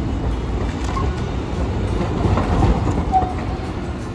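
Low-floor articulated tram rolling along street track with cars and a small pickup truck passing: a steady low rumble of wheels and tyres, with two brief faint squeals, about a second in and about three seconds in.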